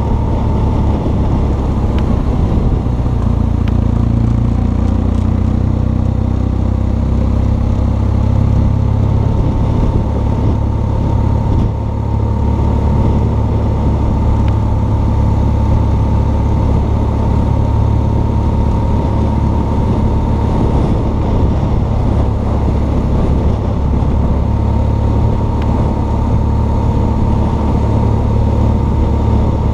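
BMW R1200 GS Adventure's flat-twin boxer engine running steadily while the motorcycle is ridden along at road speed, with a faint steady whine over the low engine sound.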